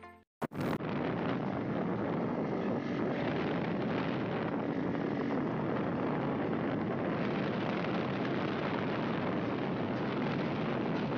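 Steady rush of wind on the microphone mixed with road and engine noise from a moving open-sided vehicle. It starts just after a short click about half a second in.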